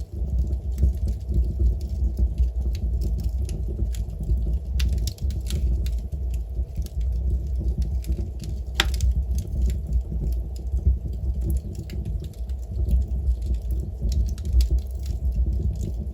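Wood fire crackling in a fireplace: scattered sharp pops and snaps over a steady low rumble, with one louder pop about nine seconds in.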